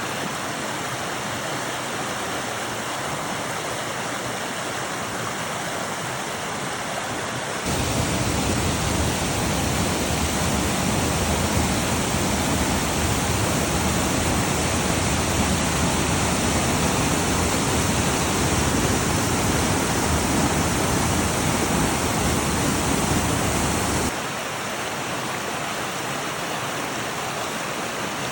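Flowing water rushing steadily, recorded on a phone. It turns suddenly louder and fuller about a quarter of the way in, then drops back just as suddenly near the end.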